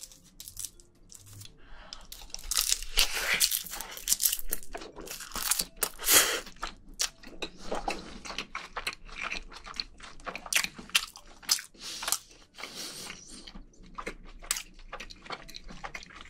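Close-miked chewing of a mouthful of rice mixed with soy-sauce marinated crab (ganjang gejang bibimbap) wrapped in seaweed, a dense run of quick mouth clicks.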